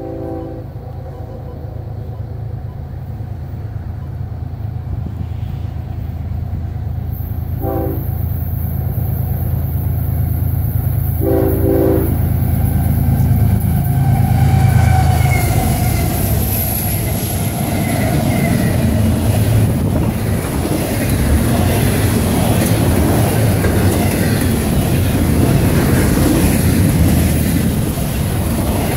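Freight train approaching with a short horn blast at the start, another about eight seconds in, and a longer one around eleven seconds. The diesel locomotives' rumble grows and they pass about fourteen seconds in. A double-stack intermodal container train follows, rushing past with steady wheel-on-rail noise.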